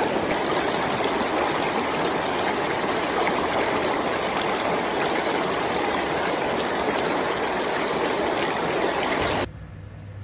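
Steady rush of running water, cutting off abruptly about nine and a half seconds in, leaving a faint low hum.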